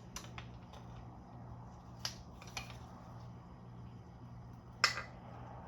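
A few sharp metallic clicks and taps from hand tools working on a Subaru EJ257 engine block during teardown, the loudest about five seconds in, over a steady low hum.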